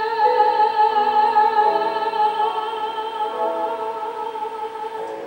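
A singer holds a long final sung note while accompanying chords shift underneath it. The sound fades away over the last couple of seconds.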